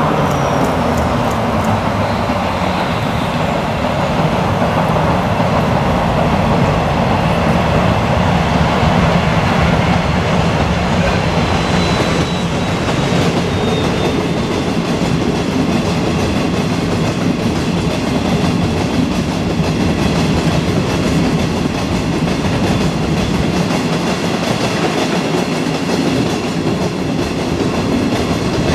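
A freight train of Hoki 100 hopper wagons hauled by a DD56 diesel locomotive runs past, a steady loud rumble of engine and wheels on rail. A thin, high wheel squeal comes in about twelve seconds in.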